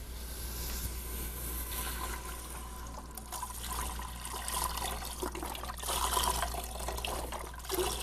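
Chicken broth pouring in a steady stream from a carton into a stainless steel stockpot of vegetables, splashing as it fills.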